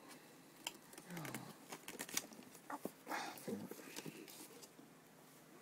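Hands handling a laptop in its cardboard packaging box: scattered light clicks and taps, with a couple of soft rustles.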